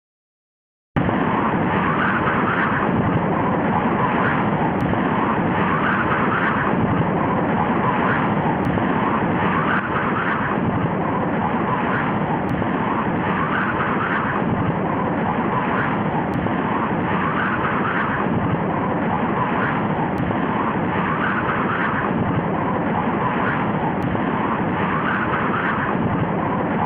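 Steady rushing roar of tornado wind, starting about a second in after a moment of silence, with slow swells every second or two.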